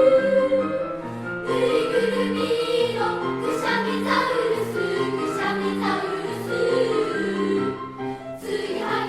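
Elementary school children's choir singing in Japanese. The voices thin out briefly about a second in and again near the end, then come back in together.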